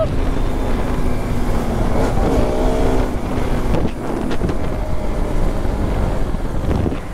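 Bajaj Pulsar RS200 motorcycle riding along, its engine under a heavy rush of wind on the microphone, with a short pitched sound about two seconds in.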